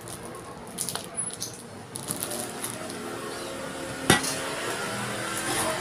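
A white plastic rolling pin working a slab of clay under plastic wrap, the wrap crinkling, then one sharp knock about four seconds in as the rolling pin is put down.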